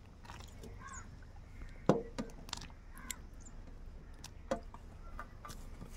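Chopped tomato pieces dropped by hand into a pot of boiling moong dal and ridge gourd: a few soft splashes and knocks, the loudest about two seconds in, over the low sound of the pot boiling.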